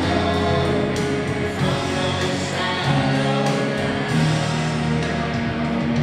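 Show music with a singing voice, with a band-style backing, playing continuously at a steady level.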